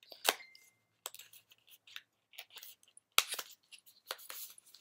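A makeup palette and its packaging being handled and opened: an irregular run of small clicks, taps and crinkles. The sharpest is about a third of a second in, with a short ring after it, and another comes about three seconds in.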